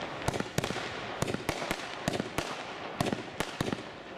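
"Dragon Thunder" consumer fireworks battery firing: a quick, irregular string of sharp bangs, about three a second, over a crackling hiss.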